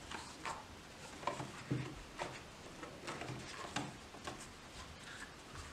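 Faint rustling and soft taps from a fabric-covered foldable sunglasses case being folded and unfolded by hand.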